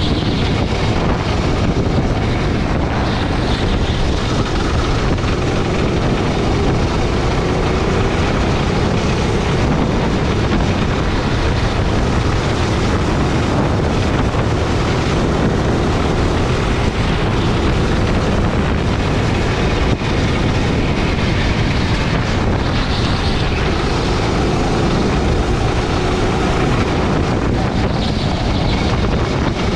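Gasoline rental kart's engine running at speed, its pitch rising and falling as the kart goes through the corners, with wind noise on the onboard microphone.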